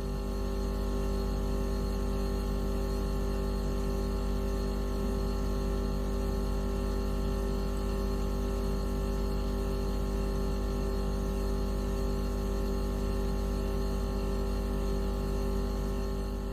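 Steady electronic drone of many fixed tones over a deep rumble, played as a mosquito-repellent tone; it holds unchanged and fades out near the end.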